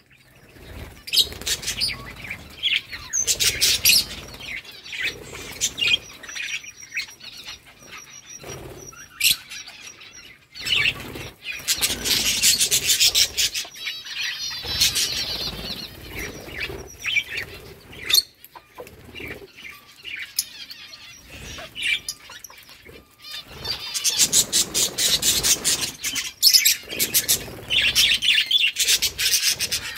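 Budgerigars chirping and chattering, with bursts of wing fluttering. The activity comes in spells, busiest around the middle and again near the end.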